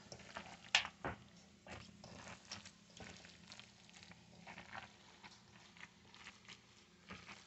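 Hands squishing and kneading wet bread stuffing, just moistened with liquid and egg, in a stainless steel mixing bowl: soft, irregular squelches with a couple of sharper knocks in the first second or so.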